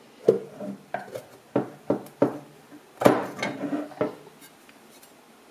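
Metal back cover of a bomb rack controller being worked loose and lifted off, giving a string of sharp metal clinks and knocks, about eight in four seconds.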